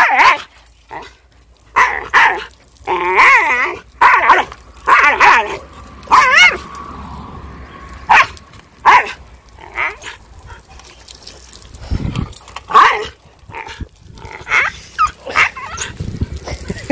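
A dog crying out over and over, short yelping howls about a second apart with a wavering pitch and one rising cry, in protest at being splashed with water.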